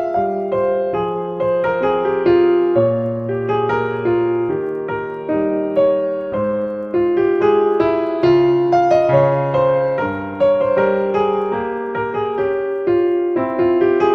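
Piano music: single melody notes over chords, struck about one or two a second, each note fading after it is played.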